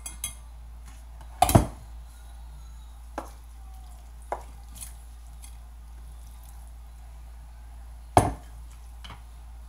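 Spatula and spoon knocking and scraping against a stainless steel pot and a wire mesh strainer while cooked mash is scraped out of the pot into the strainer. There are two louder knocks, about one and a half seconds in and near the end, and a few lighter taps in between.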